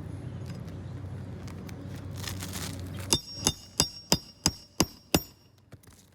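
Hand-driving a roofing nail: seven quick metal-on-metal strikes, about three a second, each with a bright ringing tone, starting about halfway through. A steady low hum runs underneath before the strikes begin.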